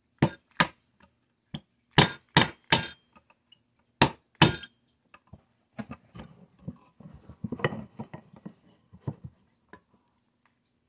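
A small hammer tapping a steel pin punch to drive a tight pin out of an HW30S air rifle's action: seven sharp metallic clinks in quick pairs and triplets. These are followed by lighter clicks and handling noise as the punch is repositioned.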